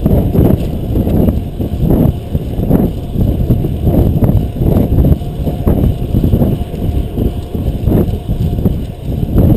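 Wind rushing over a GoPro camera's microphone on a fixed-gear racing bicycle at speed: a loud, low rumble that gusts unevenly.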